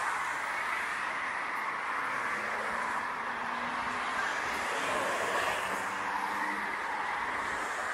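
Steady rush of dense road traffic, mostly tyre noise, with no single vehicle standing out.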